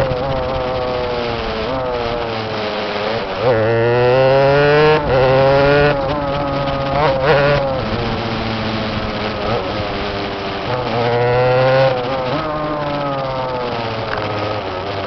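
Go-kart engine running under way, its pitch climbing and falling back several times as the throttle is opened and eased off.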